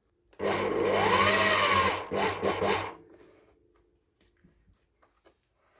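Hilti TE70 rotary hammer run after rebuilding: the motor starts abruptly and runs for about a second and a half, its pitch wavering, then starts and stops in about five quick blips before falling silent.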